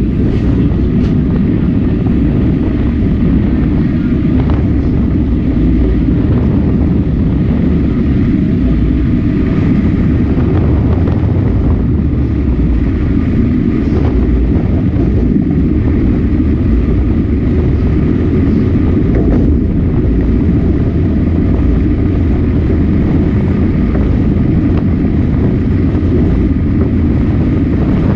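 Sightseeing train running along the line, heard from the passenger car: a steady rumble of wheels on rails, with a few faint knocks.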